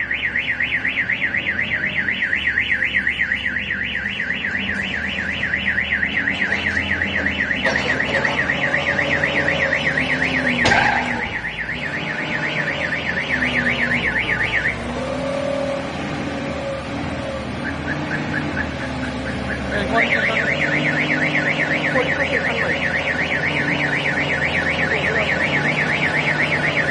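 Car alarm siren going off, a fast-warbling high tone that stops about halfway through and then starts up again. Lower engine or voice sounds run underneath.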